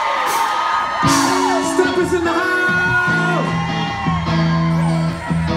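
Live R&B band performance: singing with high, sliding held vocal lines, and steady low chords coming in about a second in. A few whoops from the crowd ring out near the start.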